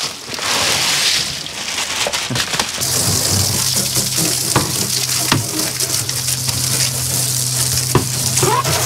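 Ice cubes poured from a bag onto fish in an insulated fish bag, then, from about three seconds in, a washdown hose nozzle spraying water hard onto the fiberglass deck, a steady hiss with a steady low hum under it and a few knocks.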